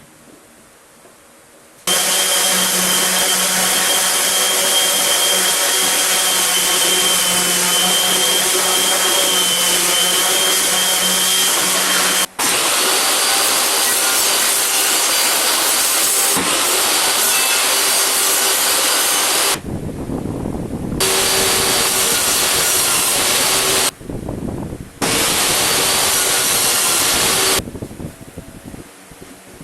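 Electric woodworking power tool running into wood: a loud, steady, noisy run with a faint high whine. It starts suddenly about two seconds in and cuts off abruptly a few times.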